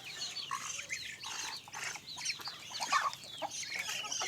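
Free-range village chickens and ducks calling together: many short, overlapping high-pitched calls.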